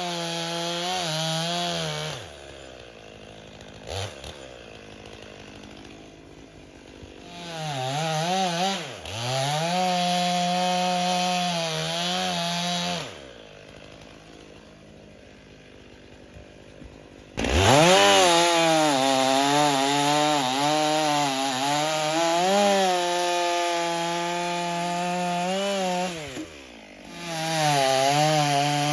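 Stihl MS 500i two-stroke chainsaw bucking logs. It runs at full throttle with its pitch wavering in the cut, drops to idle between cuts, and revs back up sharply several times.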